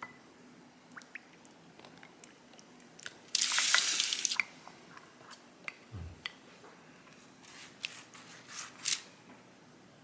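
Kitchen handling noises: scattered light clicks and taps, a loud hiss lasting about a second a little past three seconds in, and a single low thump about six seconds in.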